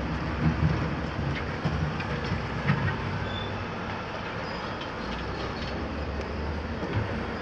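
Volvo EC300 tracked excavator working: its diesel engine runs steadily under a scatter of sharp metal clanks and a few brief high squeals.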